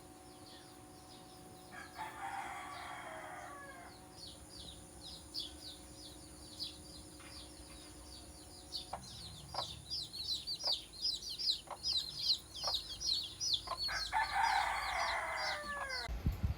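Rooster crowing twice, about two seconds in and again near the end, with rapid high chirping of small birds between the crows.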